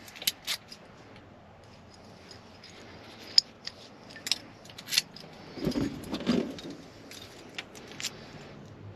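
Keys jangling and small metal parts clicking while an ignition lock cylinder and its keys are handled, in irregular sharp clicks with a couple of duller knocks about six seconds in.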